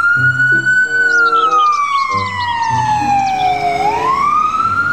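Ambulance siren on a slow wail: the pitch climbs, falls slowly for about three seconds, then climbs again near the end. Background music with steady notes runs underneath.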